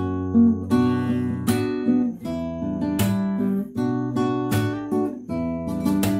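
Acoustic guitar played alone: chords strummed in a steady rhythm over a moving bass line, with a strong strum about every second and a half and lighter strokes between.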